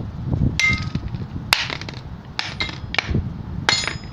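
Printed high-carbon steel parts clinking and knocking against each other or a hard surface: about half a dozen sharp metallic strikes, some ringing briefly.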